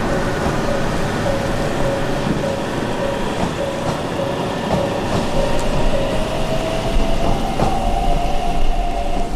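Train running past with steady whines and one tone rising slowly in the second half, as it gathers speed, and scattered clicks from the wheels, over the steady hiss of heavy rain.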